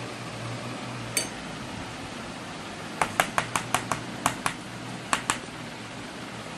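A metal knife tapping against a steel plate. There is one tap about a second in, then a quick run of about ten sharp taps over two seconds, over a steady background hiss.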